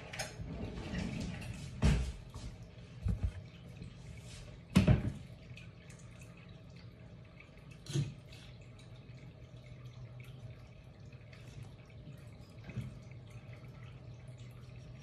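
Kitchen handling noises: a few sharp knocks and clatters, the loudest about five seconds in, over a low steady hum that carries on after them.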